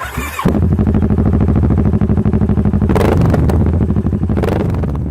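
Kawasaki ER-6n parallel-twin engine running loud through a Blackwidow aftermarket exhaust can, with a fast, even pulsing beat. A few brief sharp cracks are heard about three seconds in and again near the end.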